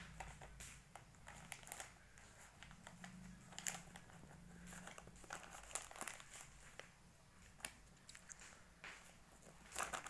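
A plastic snack packet crinkling faintly as a baby handles it, in irregular crackles with a louder rustle near the end.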